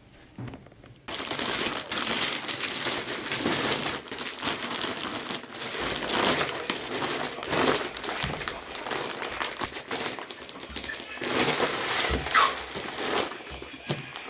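Clear plastic roll-up compression bag full of clothes crinkling loudly as it is knelt on and rolled to squeeze the air out. It starts about a second in and comes in surges until just before the end.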